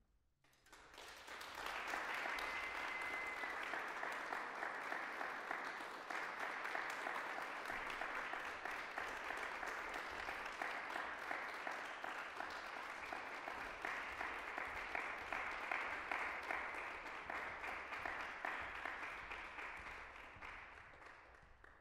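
Audience applauding, swelling in over the first second or two, holding steady, then dying away near the end, with one short high whistle about two seconds in.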